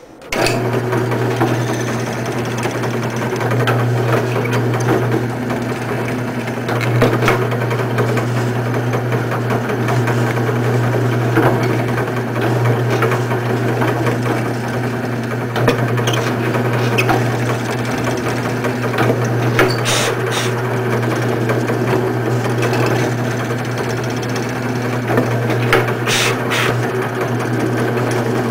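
Drill press fitted with a 1/4-inch hollow mortising chisel, switched on just as it begins and running steadily with an even motor hum while the chisel is fed down into an oak post to finish a mortise. A few brief scraping bursts come as the chisel cuts the oak.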